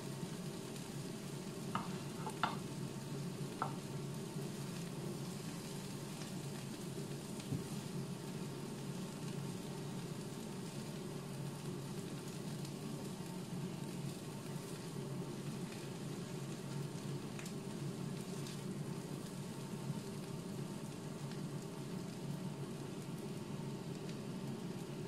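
Fried bitter melon and egg sizzling steadily in a frying pan, with a few sharp clicks of a spatula against the pan and plate, three of them in the first four seconds.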